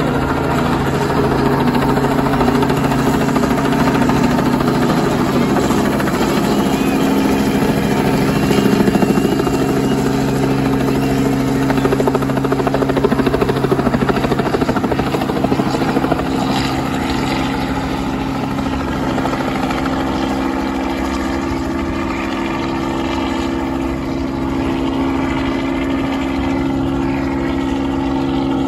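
Small helicopter flying low nearby, its rotor and engine making a steady drone, slightly louder in the first half and easing off a little after the middle as it moves farther away.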